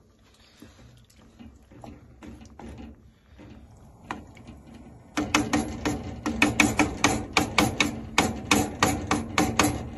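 Wooden spoon stirring rice and broth in a pot, soft at first, then from about five seconds in knocking quickly and loudly against the pot, about five knocks a second with a slight ring.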